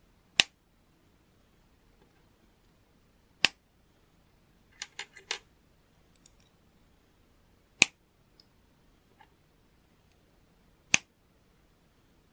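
Plastic LEGO pieces snapping together: four sharp, loud clicks about three to four seconds apart as clip-ended leg pieces are pressed onto the body. A quick run of lighter clicks and rattles comes a little before the middle, with a few faint ticks.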